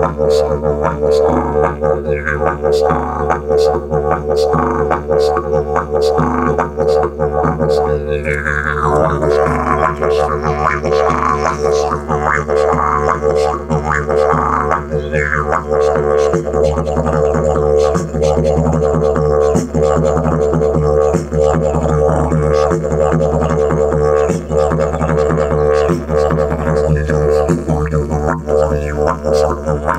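Didgeridoo played solo: an unbroken low drone with a steady rhythmic pulse, its overtones sweeping in wah-like shifts about a third of the way through.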